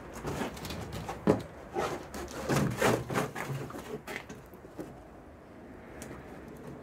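Handling noise from plastic water jugs and their cord: a run of short knocks and rubs, the sharpest just over a second in, then quieter rustling as the cord is looped over the torque wrench's handle.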